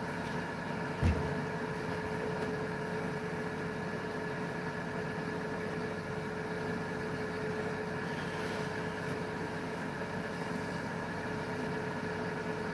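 A steady mechanical hum holding a few constant tones, with one short thump about a second in.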